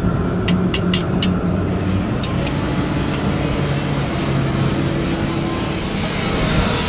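An engine running steadily, with a quick run of sharp metal clinks in the first second and a half and two more a little later, as a wrench works the bolts on a pile-driving hammer.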